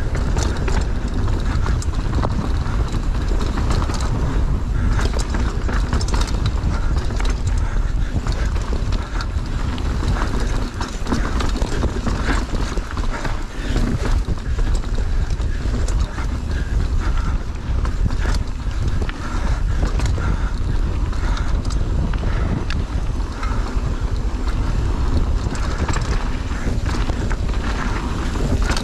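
Mountain bike descending a rough trail at speed: wind buffeting the microphone throughout, with many sharp rattles and knocks from the bike over roots and rocks.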